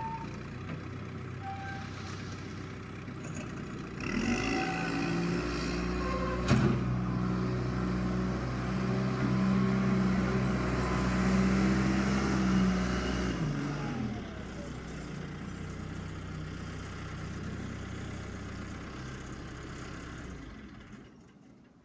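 John Deere 310 backhoe's diesel engine revving up about four seconds in and holding high revs under load, with a single sharp knock early in the high-rev stretch. It then drops back to idle around fourteen seconds and fades out near the end.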